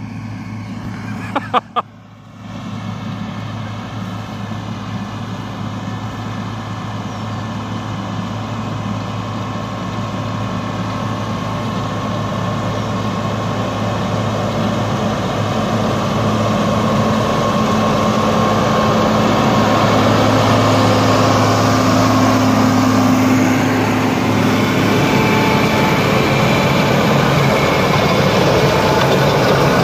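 John Deere tractor's diesel engine and a Case IH 8380 mower-conditioner running while cutting alfalfa. The steady engine hum grows louder through the first two-thirds as the rig comes closer, then holds.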